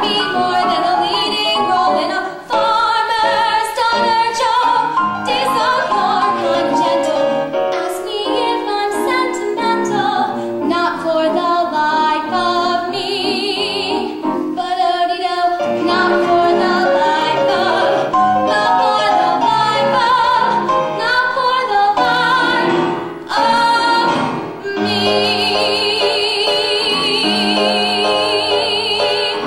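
Young woman singing a Broadway show tune with piano accompaniment, ending on a long held note with vibrato near the end.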